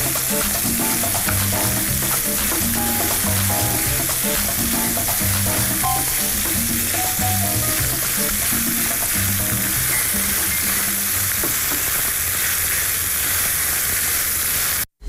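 Minced meat and mushrooms sizzling in a frying pan while being stirred with a wooden spoon, over soft background music. The sound cuts off abruptly just before the end.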